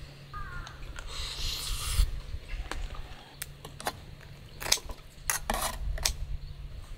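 A metal ladle scraping and clinking against a metal camping pot while stew is served into a bowl: a scrape about a second in, then a run of sharp clinks and taps.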